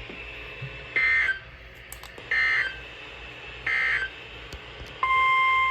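NOAA Weather Radio alert coming in: three short warbling bursts of SAME header data, then the steady 1050 Hz warning alarm tone starting near the end, marking the start of a new warning broadcast.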